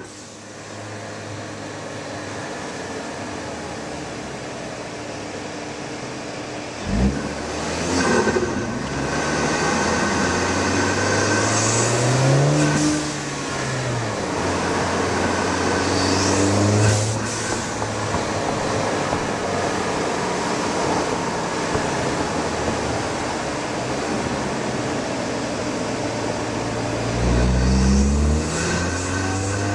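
Ford Focus ST's turbocharged 2.0 L EcoBoost four-cylinder running through a Borla exhaust with a Vibrant resonator, heard from outside the moving car. The revs rise sharply about seven seconds in, then climb and drop several more times as it accelerates and changes gear. They hold fairly steady for a while before rising again near the end.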